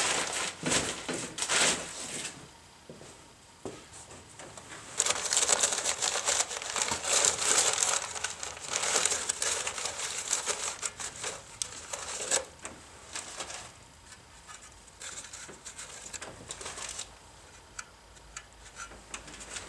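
Newspaper and paper towels crinkling and rustling as they are pulled out of an engine's open lifter valley, in bursts: briefly at the start, then a long stretch from about five to twelve seconds in and more up to about seventeen seconds.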